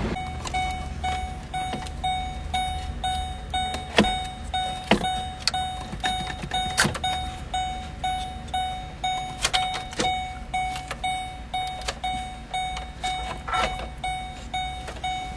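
A vehicle's warning chime beeps steadily about two to three times a second. Sharp plastic clicks and knocks from the dash connectors being handled sound over it, several times.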